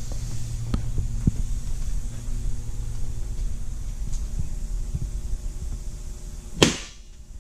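Low rumbling handling noise with light thumps from a handheld camera being carried, then one sharp click about six and a half seconds in.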